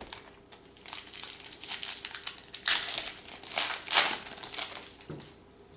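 Crinkling of a trading-card pack wrapper being opened and handled: a run of short rustles, loudest about three and four seconds in.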